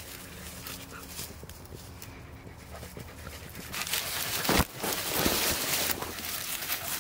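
Beagles panting close by after the chase. Partway through, a sharp rustle, the loudest sound, then louder brushing and rustling.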